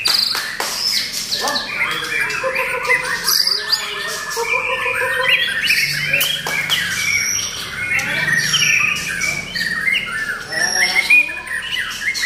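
White-rumped shama singing continuously: a fast, varied run of clear whistled phrases that rise and fall in pitch, mixed with some harsh, scratchy notes.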